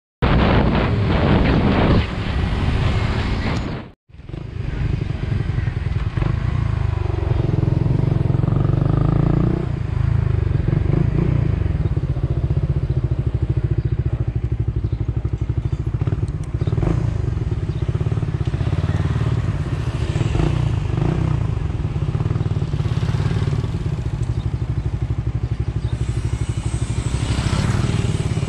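Motorcycle engine running steadily under way, with wind rushing over the microphone that is strongest in the first two seconds. The sound drops out for an instant about four seconds in, then the engine carries on with a lower, even rumble.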